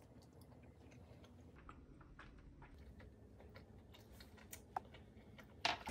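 Faint, scattered small clicks and ticks at a low level, with two sharper clicks near the end.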